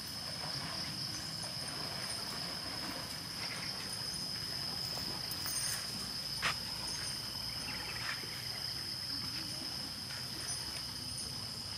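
A steady high-pitched insect drone over the sloshing and splashing of water as elephants wade through shallow water, with one sharp click about six and a half seconds in.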